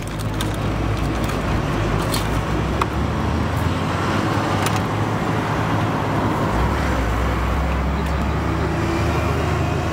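A steady mechanical roar with a low hum underneath, and a few sharp clicks and knocks on top.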